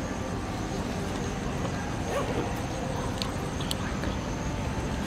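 Steady low background rumble at an even level, with a few faint short clicks a little past three seconds in.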